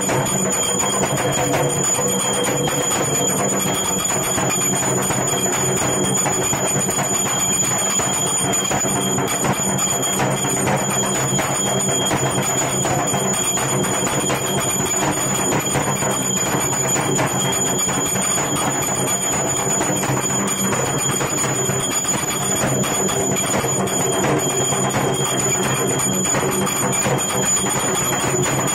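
Brass puja hand bell rung steadily and without pause, its high ringing tones held throughout.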